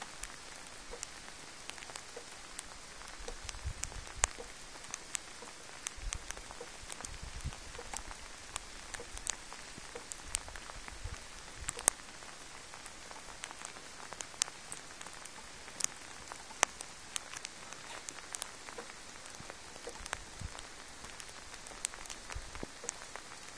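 Steady rain falling, with many scattered individual drops ticking sharply on nearby surfaces. Faint low rumbles come a few times.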